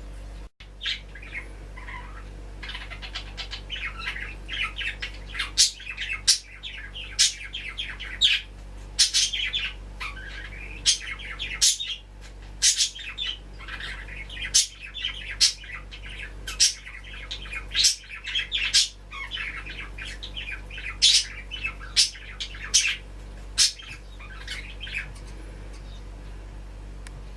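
Garden birds chattering and squawking, with many loud, sharp calls over continuous twittering.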